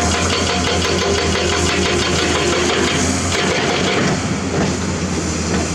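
Komatsu PC200 excavator's diesel engine running steadily, easing off slightly about four seconds in.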